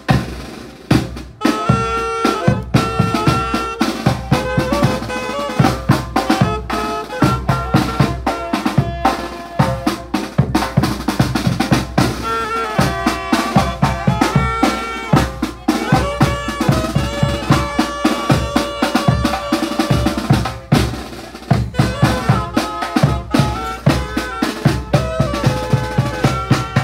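A Zacatecan-style tamborazo band playing live as it marches: saxophones carry the melody over a steady beat on the tambora, the band's big two-headed bass drum. The playing breaks off briefly about a second in and again about twenty seconds in.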